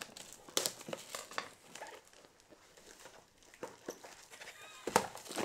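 Plastic parcel packaging rustling and crinkling as it is cut open with scissors and unwrapped, with scattered small clicks and handling knocks; a sharper knock comes near the end.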